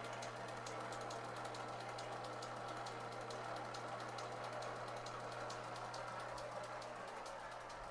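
Brown & Sharpe No. 2 surface grinder's flat-belt drive running: a steady low hum with a rapid, even light ticking as the belts turn over the pulleys.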